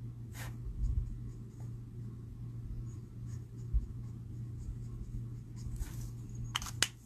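Felt-tip alcohol marker (Spectrum Noir Illustrator, shade CR8) scratching softly on cardstock as red is coloured in, over a steady low hum. Near the end come a few sharp plastic clicks as the marker is put aside and shades are swapped.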